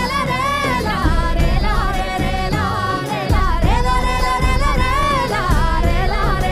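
Live Indian folk-style music: a melody of long held notes with bending ornaments, sung or played over a steady bass and accompaniment.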